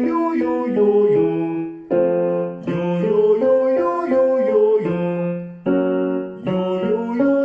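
Piano accompaniment for a vocal warm-up exercise: a chord struck, then a short run of notes, with the pattern starting again about every three and a half seconds.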